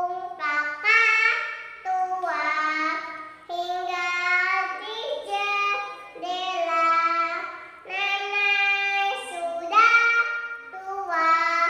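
A young girl singing solo with no accompaniment, in phrases of held, sliding notes with short breaks between them.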